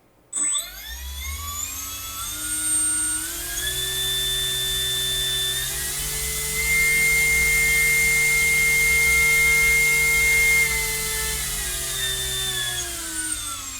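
A small electric propeller motor driven by an ESC spins up from about half a second in, its whine rising in steps to a steady top speed, where the stand reads about 114 grams of static thrust. It holds there for about four seconds, then steps back down and starts winding down near the end.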